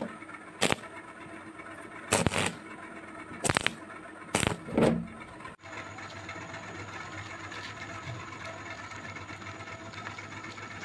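Electric arc welder striking short tack welds on a thin steel rod frame: four or five brief crackling bursts in the first half. After that a steady low hum, with no bursts.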